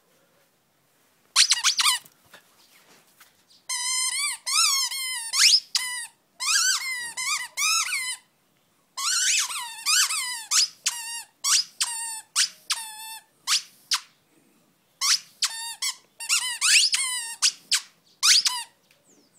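Dog's squeaky toy squeaking again and again as a Jack Russell pup bites and chews it: high squeaks, some short, some drawn out with a wavering pitch, coming in bursts with short gaps, starting about a second and a half in.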